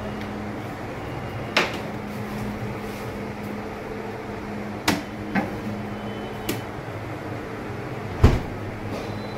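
Kitchen containers being handled: a handful of sharp clicks and knocks from a steel canister, lids and a box, the loudest a deeper thump near the end. A steady low hum runs underneath.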